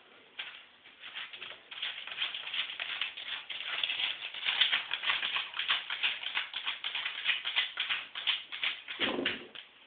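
Small dog digging and rooting in newspaper lining a plastic dog bed to bury a snack: a fast, continuous rustling and crinkling of paper. About nine seconds in there is a brief duller thump.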